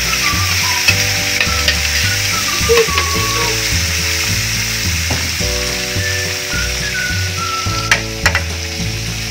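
Hot oil sizzling steadily in a wok as pieces of fish deep-fry, under background music. A couple of sharp metal clicks from the slotted spatula come about eight seconds in.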